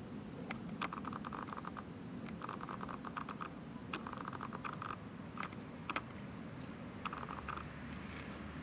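Eurasian beaver chewing, with rapid crisp clicking of its teeth in short spells of about half a second and a few sharper single snaps. A steady low hum lies underneath.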